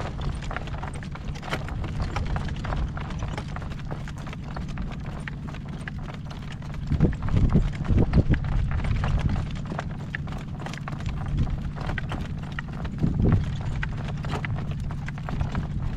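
A horse's hooves clip-clopping steadily as it is ridden, with gusts of wind buffeting the microphone in loud low rumbles about seven seconds in and again near the end.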